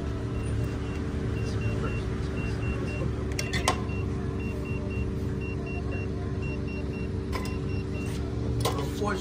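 Car idling beside the open rear door, a steady low hum, with a faint high door-open chime beeping over and over. A few short clicks sound about three and a half seconds in.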